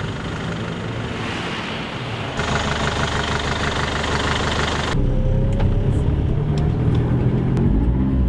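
A van's engine running as it drives off, the sound changing abruptly twice as the shots cut. From about five seconds in it is louder and deeper, with a rising whine as the van picks up speed.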